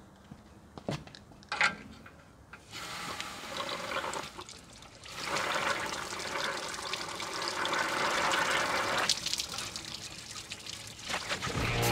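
Water from a garden hose's trigger spray nozzle rushing into a tractor radiator, flushing the vinegar out of the cooling system. After a few clicks of handling the nozzle, the flow starts about three seconds in, stops briefly near four and a half seconds, then runs on and eases near the end.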